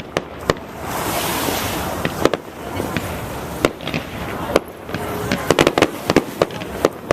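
Fireworks display: repeated sharp bangs from bursting shells, with a spell of crackling hiss about a second in and a quick run of cracks past the middle.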